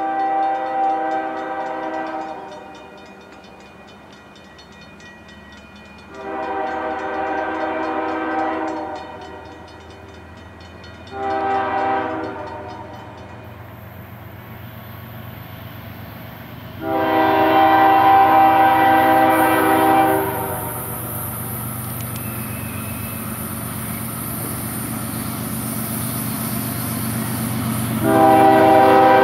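CSX diesel freight locomotive's air horn sounding a chord in the grade-crossing pattern: long, long, short, long, with another blast starting near the end. Underneath, the locomotive's engine rumble grows steadily as the train approaches.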